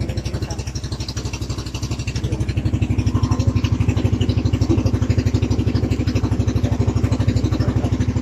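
Engine of a motorized outrigger fishing boat running underway with a fast, even chug, growing louder about two and a half seconds in.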